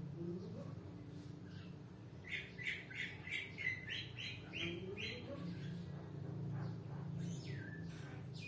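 A bird chirping in a quick run of about three chirps a second for a few seconds, with a few more calls near the end, over a steady low hum.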